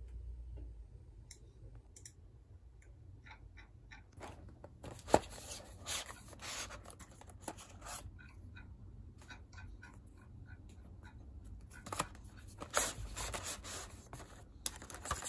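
Close-up handling sounds: a run of small clicks, scrapes and rustles, with one sharp click about five seconds in and busier scratching near the end.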